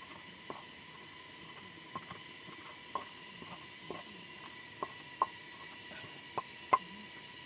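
About nine sharp knocks or taps at uneven intervals, the loudest two near the end, over a faint steady hiss and a thin steady whine.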